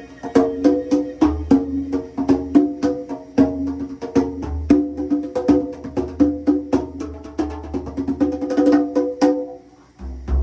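Percussion solo music: quick, sharp strikes, about three or four a second, ringing on two steady pitches over a low bass. It breaks off briefly near the end.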